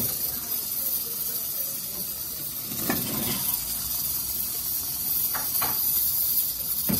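Cubed gourd tipped into an aluminium pressure cooker of frying masala: a soft clatter and thud about three seconds in over a steady sizzling hiss, then a couple of light metal clicks of the ladle against the pot near the end.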